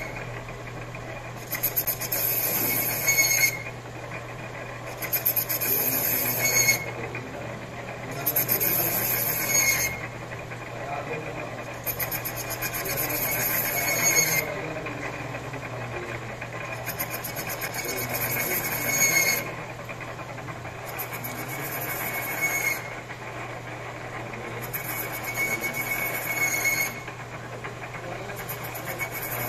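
A metal lathe's tool bit cutting inside a scooter's clutch bell, re-grooving its inner surface. It gives a scraping squeal in repeated passes about every three and a half seconds, each ending in a brief high squeal, over the steady hum of the lathe.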